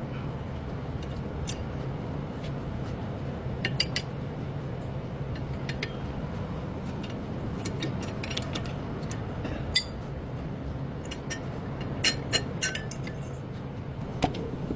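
Sharp metallic clinks and taps of tools and parts being handled, scattered irregularly with small clusters, over a steady low hum.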